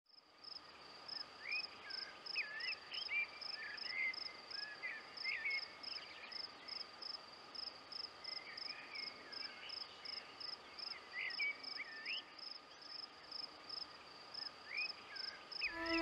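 A cricket chirping evenly, about two to three chirps a second, with a songbird singing short whistled phrases in bursts and a faint steady tone underneath.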